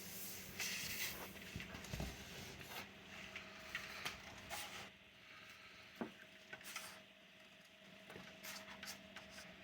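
Faint rustling, scraping and scattered small clicks of an adhesive laptop skin sheet being cut out by hand along a traced outline.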